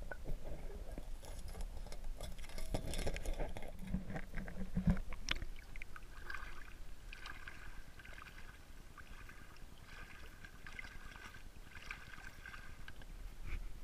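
Muffled rumbling and knocks of water and movement heard through a camera held underwater for about the first five seconds. Then, above the surface and quieter, irregular water sloshing and splashing as a crab rake is pushed through knee-shallow water.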